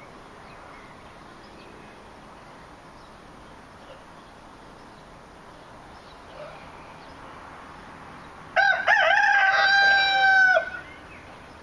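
A rooster crows once, about two seconds long and starting near the end: a few short broken notes, then a long held note. It is loud over a faint steady background.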